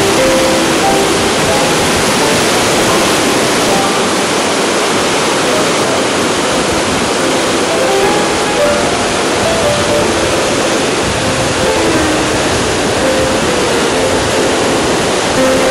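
Steady rush of water pouring over a concrete dam spillway, with soft background music notes over it.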